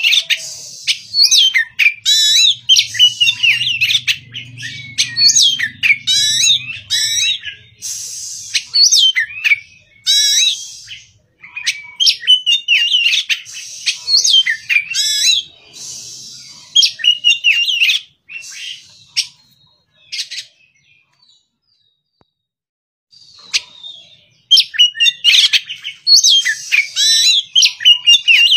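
Caged Oriental magpie-robin (kacer) singing its morning song: a run of fast, varied whistles and warbled phrases. It falls nearly silent for a few seconds past the middle, then starts again near the end.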